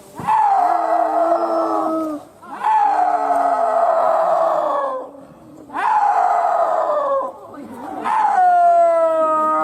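Snow leopard giving four long, wailing calls, each about two seconds long and sliding slightly down in pitch, with short pauses between them.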